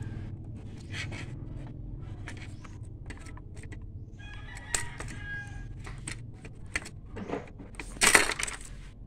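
Needle-nose pliers clicking and scraping against the plastic and metal parts inside an Epson inkjet printer, with a louder clatter about eight seconds in. About halfway through, a rooster crows briefly in the background.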